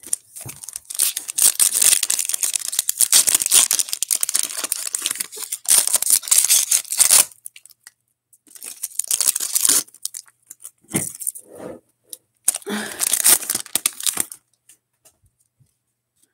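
A Panini NBA Hoops trading-card pack's foil wrapper being torn open and crinkled, a dense crackle for about six seconds. Three shorter bursts follow as the opened wrapper and cards are handled.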